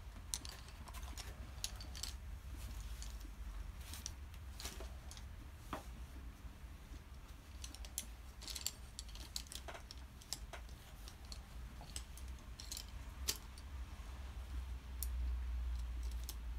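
Irregular light clicks and taps of small hard objects being handled, over a low steady rumble that swells briefly near the end.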